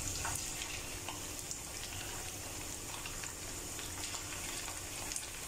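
Cornflour-coated chicken pieces frying in hot oil in a pan: a steady sizzling hiss with scattered small crackles and pops.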